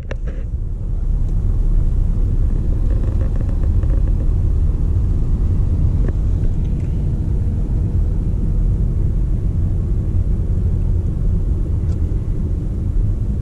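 Steady low rumble of road and engine noise heard inside a car's cabin as it moves slowly along the highway.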